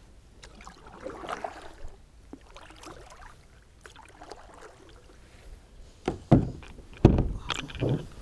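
Handling noises in a fishing kayak: soft rustling and small knocks for several seconds, then a few loud hollow thumps against the kayak near the end.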